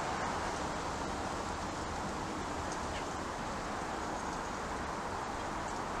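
Steady outdoor background noise: an even hiss with a faint low rumble underneath, with no distinct call or knock standing out.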